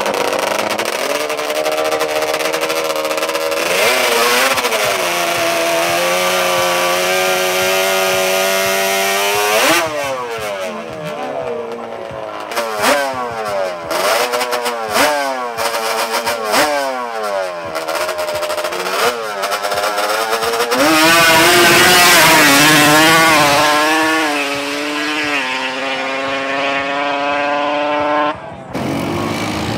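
High-revving drag-racing engine: it holds steady revs for about ten seconds, then is blipped sharply up and down several times, and about twenty seconds in it gets louder in a hard run with the pitch wavering and climbing, settling to a steadier note before cutting off near the end.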